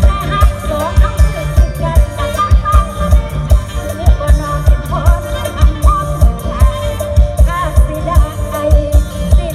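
Live mor lam band music over a PA system, with a steady kick drum at about two beats a second under a melodic lead line.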